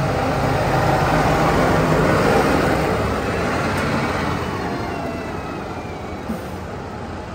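New Holland TD5.115 tractor's four-cylinder diesel engine running as the tractor drives off, growing fainter from about three seconds in as it moves away.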